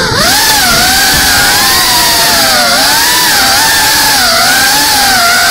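GEPRC CineLog35 cinewhoop FPV drone's motors and ducted propellers whining, the pitch wavering up and down with the throttle, over a steady hiss of prop wash.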